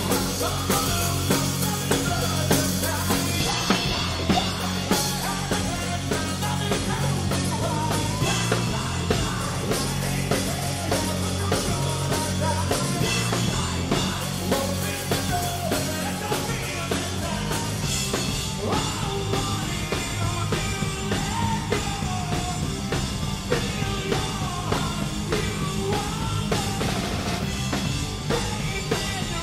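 Rock band playing live: drum kit, bass and electric guitar, with a singer's voice coming in over the band more clearly in the second half.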